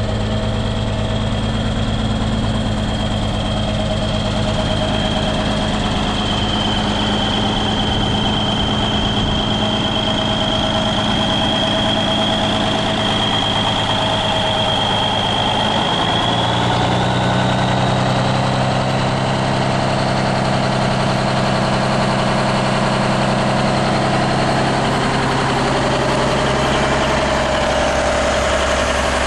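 Cummins NTC 400 inline-six diesel of a 1972 Peterbilt 359M idling steadily. A thin high whine rides over it for the first half, and the engine's note shifts slightly about halfway through.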